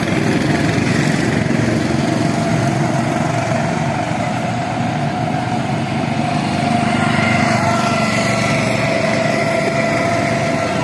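Small go-kart engines running as several karts lap the track, a steady buzzing drone. A higher engine whine grows clearer about two-thirds of the way through as a kart passes.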